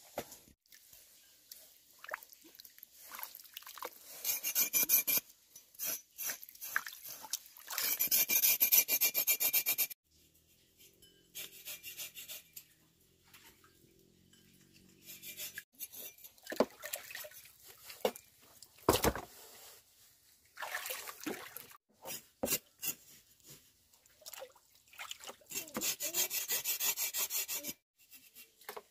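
A knife scraping pork skin over a basin of water, in repeated bursts of rasping strokes, with a few knocks and splashes between them.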